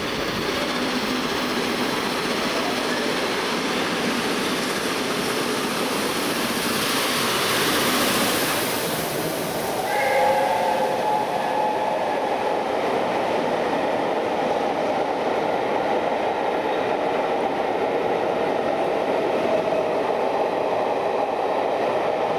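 Steam-hauled passenger train headed by 60163 Tornado passing at speed, its coaches running by with a continuous rumble. A rush of hissing noise swells about seven seconds in, then steady ringing tones join about ten seconds in and carry on.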